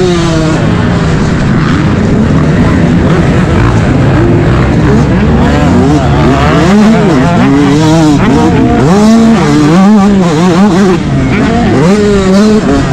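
Yamaha YZ125's two-stroke single-cylinder engine at race throttle, its pitch rising and falling again and again as it revs out and shifts through the gears.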